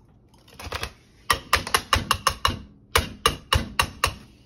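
Knife tapping quickly on a sheet of set hard candy in a metal baking pan, cracking it into pieces: a run of sharp clicks starting about a second in, a short pause, then a second run.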